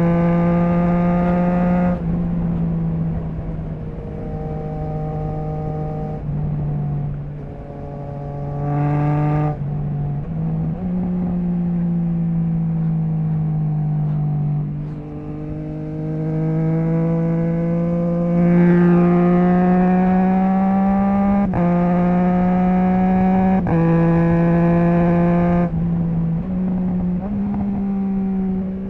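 Triumph Trident 660's inline three-cylinder engine through a Zard stainless full exhaust with the baffle removed, accelerating hard and easing off. The pitch rises steadily under load and drops sharply at each quickshifter upshift, three in quick succession near the end, with a slow fall and climb in the middle as the throttle is rolled off and opened again.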